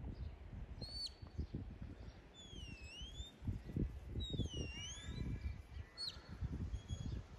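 Shepherd's whistle commands to a working sheepdog: two long dipping whistles in the middle and short sharp upward flicks near the start and near the end, over wind rumbling on the microphone.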